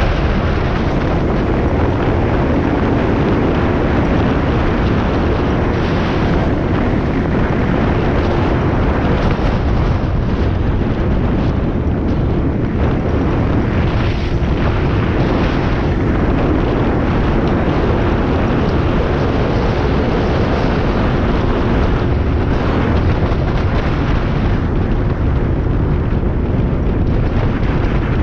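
2003 Yamaha XT225's single-cylinder four-stroke engine running steadily under way, buried in loud, steady wind rush on the action-camera microphone.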